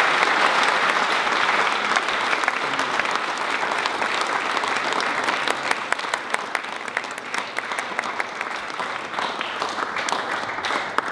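Audience applauding, gradually dying down so that single claps stand out more near the end.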